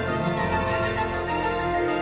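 Full orchestra playing minimalist symphonic music: repeating patterns over sustained chords, with a steady pulse of about two beats a second.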